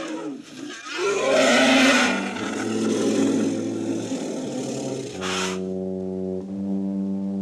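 Dramatic orchestral film score with low held notes. About a second in there is a harsh, noisy sound, and about five seconds in a brief crash, after which the held notes grow fuller.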